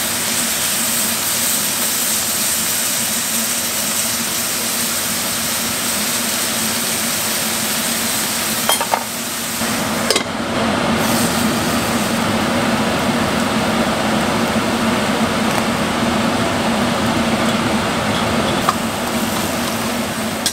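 Rice cakes, bok choy and shiitake mushrooms sizzling steadily in a skillet on a gas burner, stirred with a wooden spatula. A few clicks come around nine to ten seconds in as a lid goes onto the pan, and the sizzle is a little louder after that.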